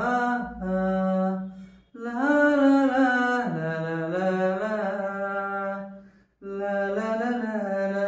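A man singing unaccompanied, holding long notes that slide in pitch, in three phrases with short breaks about two and six seconds in.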